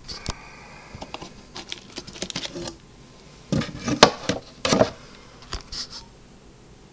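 Handling noise from the wooden case and hinged frame of an antique Edison mimeograph: a scattered run of light clicks and knocks, with a sharper knock about four seconds in.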